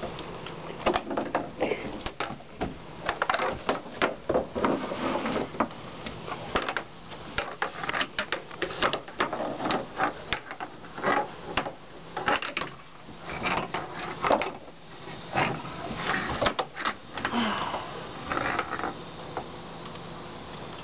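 Great Dane puppy dragging and chewing a broom across wooden deck boards: irregular scraping and knocking of the broom head and handle against the wood.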